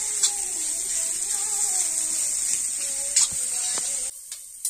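Vegetables sizzling in a hot wok as they are stir-fried, with a metal spatula knocking against the pan a few times. The sizzle cuts off about four seconds in.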